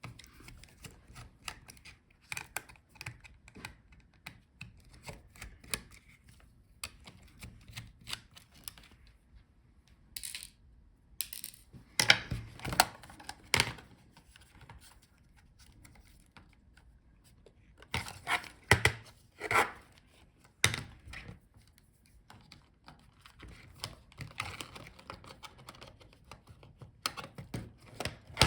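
Small screwdriver clicking and tapping on the tiny screws of a laptop palmrest and touchpad as they are backed out and the parts are handled. Light scattered clicks throughout, with louder clusters of knocks about twelve seconds in and again near nineteen seconds.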